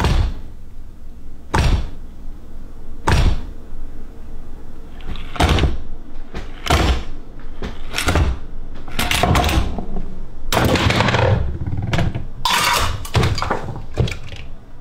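Homemade chain-reaction contraption of wood, metal and kitchen objects running: about six separate knocks and thuds, one every second or so, then a faster run of clattering knocks from about nine seconds in.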